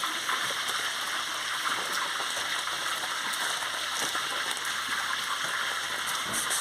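Fish frying in hot oil: a steady sizzle with small crackles and pops.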